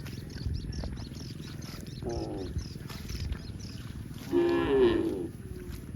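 Cow mooing twice: a short, fainter moo about two seconds in, then a louder, longer moo falling in pitch near the end.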